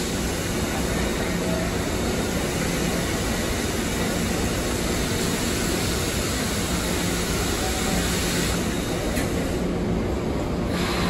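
Steady cabin noise inside a Budd-built LIRR M3 electric commuter car, an even rushing drone with a faint low hum underneath.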